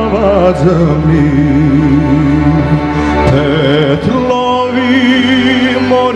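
Male voice singing a Serbian traditional folk song with a wavering, vibrato-laden melody, accompanied by a live folk band of violin, bass guitar, drums and keyboard.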